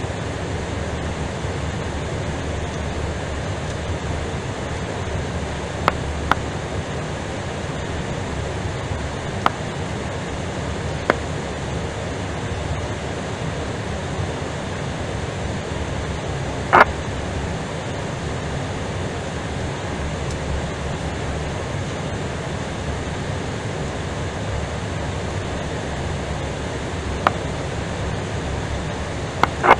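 Steady cockpit noise of an Airbus A320 taxiing: a low rumble with an even hiss over it, broken by a handful of short sharp clicks, the loudest a little past halfway.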